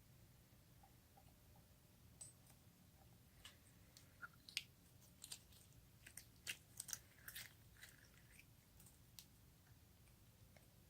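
Slime being worked, giving faint scattered sticky clicks and small crackling pops, most of them clustered in the middle stretch.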